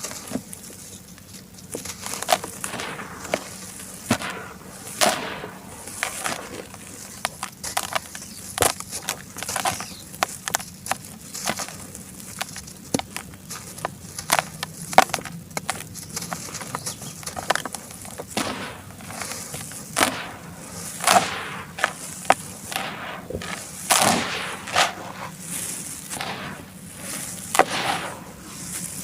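Charcoal being crumbled and crushed, an irregular run of sharp crunches and cracks, denser and louder in the second half.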